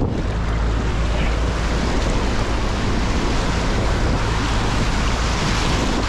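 River water rushing and splashing around an inflatable raft in rapids, with steady wind rumble on the microphone.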